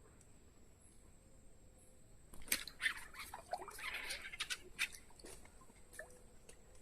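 A hooked aracu splashing and thrashing at the water's surface: after about two seconds of quiet, a run of sharp splashes and knocks that thins out toward the end.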